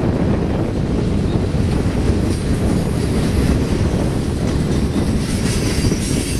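Freight cars of a BNSF manifest train rolling past at close range: a loud, steady rumble of steel wheels on the rails.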